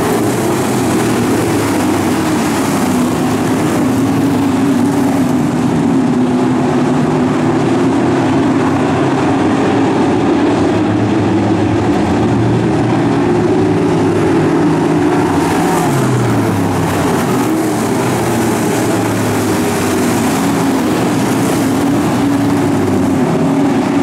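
A field of pro stock dirt-track race cars, V8 stock cars, running together at race speed, several engines heard at once. Their pitch rises and falls as drivers accelerate and lift, with one engine dropping in pitch about two-thirds of the way through.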